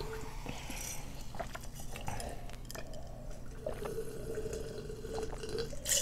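Two people gulping carbonated ginger ale from glasses, with small liquid and glass clicks and a faint held hum.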